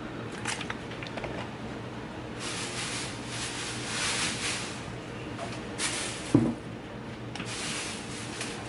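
Plastic grocery bags rustling in several stretches as groceries are handled and unpacked, with one sharp knock about six seconds in.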